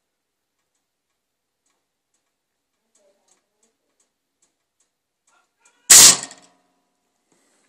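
Morphy Richards TUID pop-up toaster: faint ticking from its mechanism for a few seconds, about two or three ticks a second, then a loud sharp metallic snap with a brief ring as the mechanism trips and the toast pops up.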